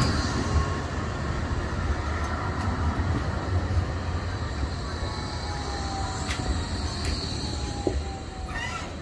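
Bombardier Flexity 2 tram passing close by at low speed, a steady low rumble with a faint whine sliding slowly down in pitch in the second half. The sound fades near the end as the tram moves away.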